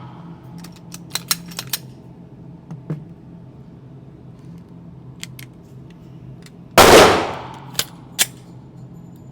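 A single 9mm pistol shot from a Glock 17 about seven seconds in, loud and sharp, ringing out and fading over about a second. Light metallic clinks come in a cluster about a second in, a few more are spread through, and two follow the shot.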